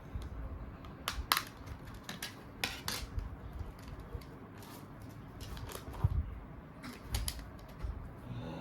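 Mobile phones and their plastic parts being handled: a series of sharp clicks, some in close pairs, with light clatter in between.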